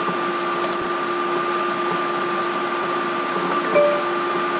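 Steady hiss with a constant low hum and a higher whine, the background noise of a desktop screen-recording microphone, with a few faint clicks a little under a second in and near four seconds.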